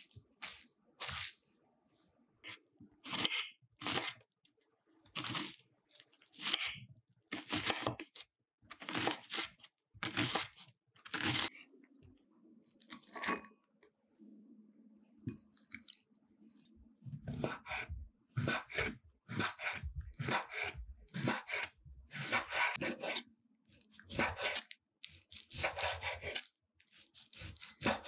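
A chef's knife cutting on a wooden cutting board in a long series of short, crisp, crunching strokes. Near the end, the knife is chopping raw chicken breast into small pieces, with heavier, quicker strokes. At the very start, plastic wrap crinkles as it is pressed over a glass bowl.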